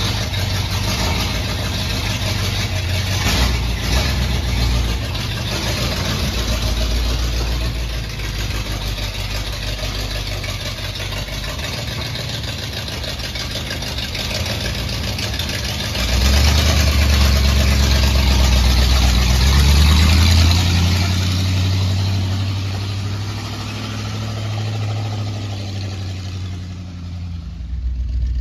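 Flathead V8 engine of a 1950 Ford F1 pickup running. About sixteen seconds in it gets louder and its pitch rises, then it eases back a few seconds later.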